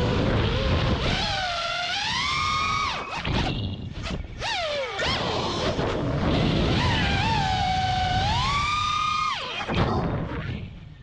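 5-inch FPV quadcopter's brushless motors and three-blade props whining, the pitch rising and falling with throttle as it flies freestyle. The whine drops away briefly twice, at about three and a half seconds and again near the end, as the throttle is chopped.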